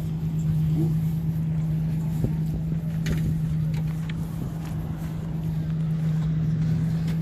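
An engine running at a steady idle: a constant low hum that holds one pitch throughout, over a rough low rumble.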